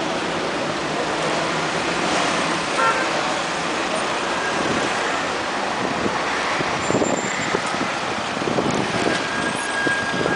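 Street traffic noise: a steady hum of road vehicles at an intersection, with a brief high beep about three seconds in.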